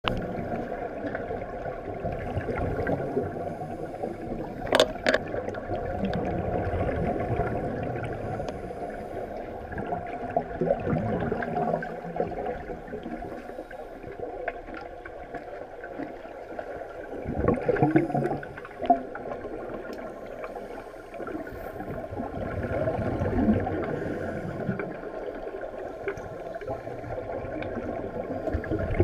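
Scuba regulator breathing heard underwater: exhaled bubbles gurgling and rumbling in uneven surges, with a sharp click about five seconds in and a louder burst of bubbles and clicks near eighteen seconds.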